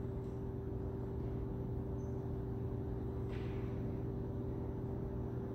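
Steady low hum of a large gymnasium's room tone while the hall is otherwise quiet, with a faint short sound about three seconds in.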